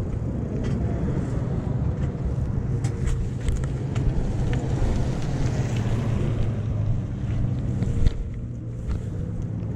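Wind noise on the microphone: a steady low rumble with scattered light clicks, a sharp knock about eight seconds in, then a little quieter.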